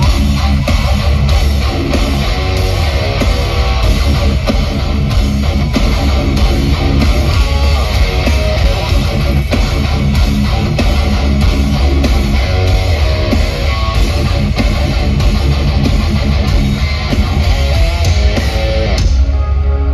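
Live metalcore band playing loudly: heavy electric guitars, bass and drums driving a steady beat.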